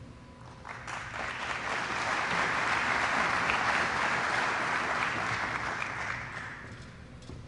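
Audience applauding to welcome a newly introduced speaker, starting about a second in and fading away near the end.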